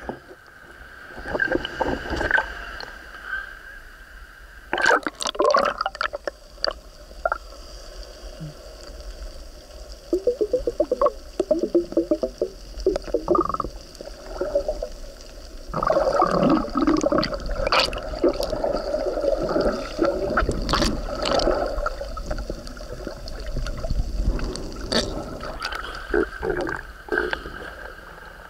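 Sea water sloshing, splashing and gurgling around an action camera sealed in a waterproof housing as it moves through the water, dipping above and below the surface; the housing muffles the sound, with many irregular knocks and bubbling bursts.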